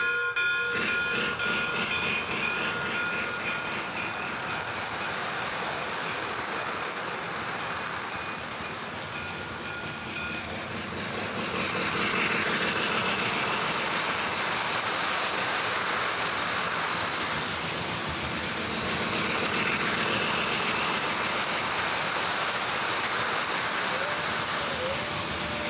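Lionel model train running fast close by: a steady rolling rush of metal wheels on the track with the motor's whir, easing off slightly and picking up again about twelve seconds in. A bell-like ringing from the train's sound system fades out about ten seconds in.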